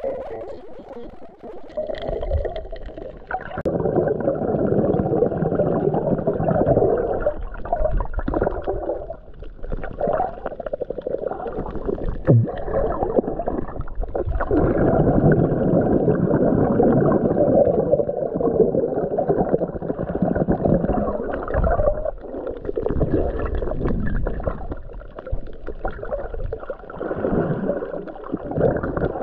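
Muffled rushing and gurgling of water recorded through an underwater camera, swelling and fading in long surges, with one sharp knock about twelve seconds in.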